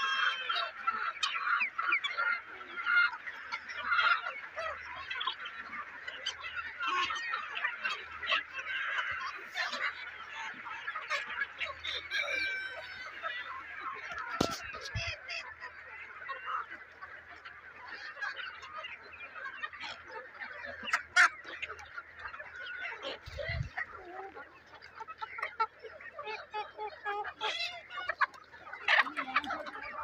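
A large flock of chickens calling all at once, a dense, continuous chatter of many overlapping hen calls, with a louder single call about two-thirds of the way through.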